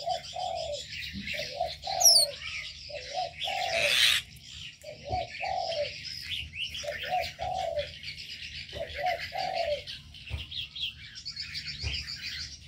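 A dove cooing in repeated short phrases of two or three notes, one phrase every second and a half or so, over a steady chatter of many small birds chirping. A short loud rustle about four seconds in.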